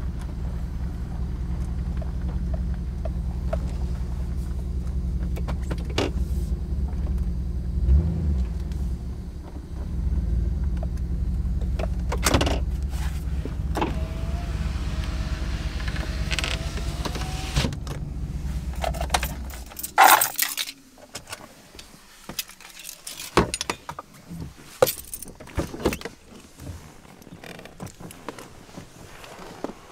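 Inside a pickup truck's cab, the engine runs with a steady low rumble, then is switched off about twenty seconds in. A string of clicks, knocks and jingling keys follows as the driver's door is unlatched and opened.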